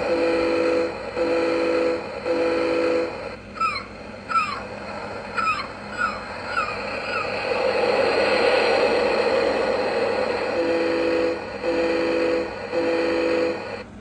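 Electronic sound effects from a motion-activated lighthouse figurine's sound chip: three foghorn blasts, then about six short seagull cries over the rush of ocean waves, a wave swelling in the middle, then three more foghorn blasts near the end.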